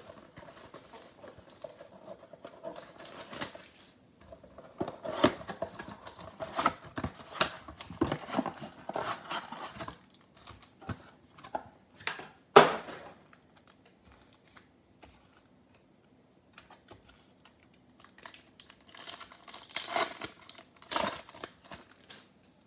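Cellophane shrink wrap crinkling and tearing as a trading-card box is unwrapped and opened, with card packs rustling. There is one sharp tap about twelve and a half seconds in, a few quiet seconds after it, then a card pack's wrapper crinkling and tearing open near the end.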